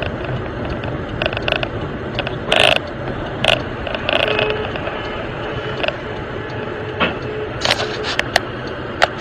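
A car driving, heard from inside the cabin: steady road and engine rumble with irregular sharp clicks and rattles.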